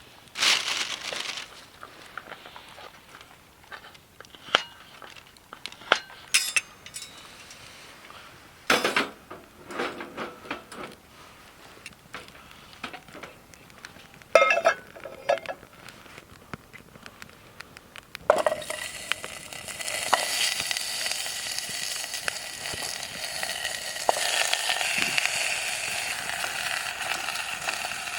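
Metal cookware and utensils clinking and scraping in separate knocks over campfire cooking, then about two-thirds of the way in a steady sizzle starts and carries on, louder than the clinks, as food goes into the hot pan.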